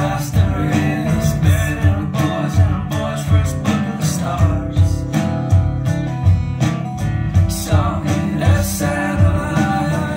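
A song with singing and a steady beat, played through a pair of Klipsch Jubilee horn loudspeakers fitted with Celestion AXi2050 and Beyma TPL200 drivers and heard in the room.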